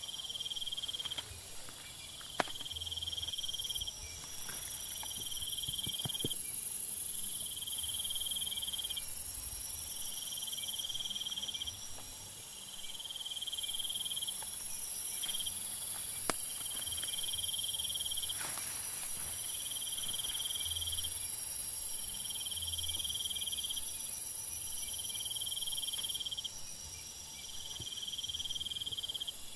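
Chorus of insects: a steady high-pitched drone that stops and starts a few times, over a shorter call repeating about every two seconds. A few faint clicks come through as well.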